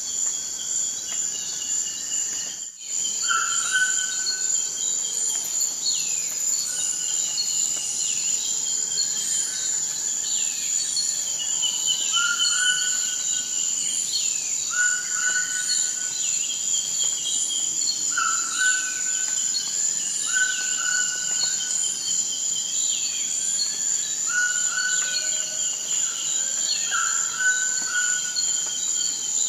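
Forest ambience: a steady high-pitched insect drone, with short rising chirps repeating about every second and a half and birds calling over and over. The sound dips out briefly about three seconds in.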